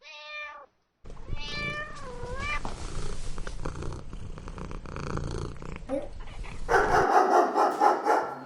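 Cat meowing twice, a short meow and then a longer wavering one, over a low purr. Near the end a louder, rougher sound takes over.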